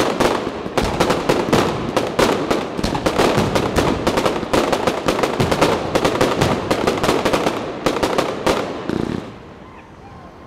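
Fireworks display firing a rapid barrage of bangs, several a second, from aerial shells and crackling stars. The barrage dies away near the end.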